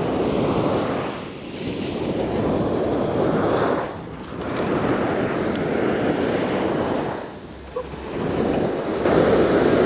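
Ocean surf breaking and washing up a sandy beach, the rush of water swelling and easing in surges about every three seconds.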